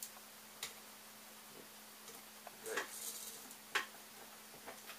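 Light clicks and a brief rustle of electrical wires being handled and pushed through a plastic wire guide: a click about half a second in, a short rustling patch near three seconds, and a sharper click just before four seconds, over a faint steady hum.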